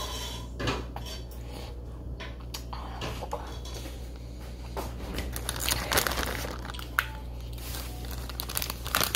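Hard plastic Easter eggs clicking and clattering as they are handled and snapped shut, with scattered clicks that grow busier in the second half and one sharp click about seven seconds in. A steady low fan hum runs underneath.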